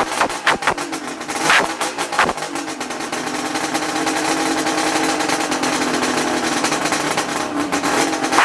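Freshly restored 1975 Suzuki GT550's two-stroke three-cylinder engine running. It gives a few sharp pops in the first couple of seconds, then settles into a steady, even note.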